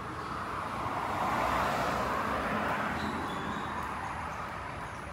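Road traffic: a passing vehicle's tyre and engine noise swells to a peak about two seconds in and then fades away.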